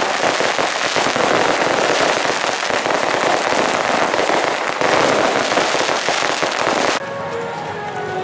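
Dense, continuous crackling of a ground fireworks barrage throwing showers of sparks, swelling again about five seconds in. It cuts off abruptly near the end and is replaced by quieter music with held tones.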